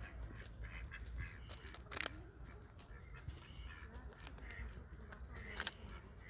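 Faint crunching clicks of a nutria gnawing a chunk of food held in its front paws, the clearest about two seconds in and again near the end, over a low steady rumble.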